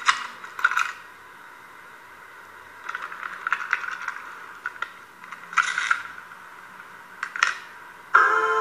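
Clicks and short rattles of a plastic cassette and its tape being handled, played back through small laptop speakers that thin them out. Music with piano-like chords starts near the end.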